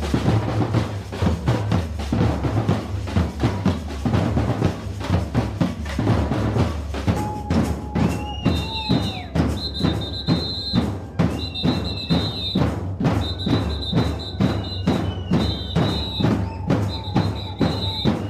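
Batucada samba drum ensemble playing: surdo bass drums with snares and other drums beating a fast, driving samba rhythm. From about halfway through, a short high-pitched tone repeats every second or two over the drums.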